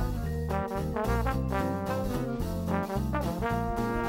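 Background music: a melody carried over a bass line that steps from note to note.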